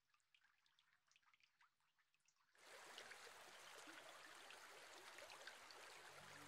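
Faint water drips, then from about two and a half seconds in a steady trickle of running water with scattered drips.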